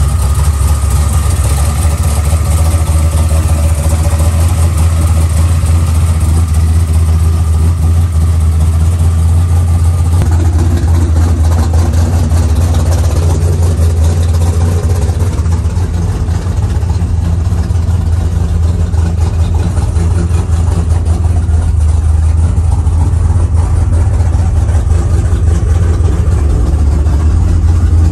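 A built 5.9-litre V8 race-truck engine idling loudly and steadily, with a deep, evenly pulsing low note.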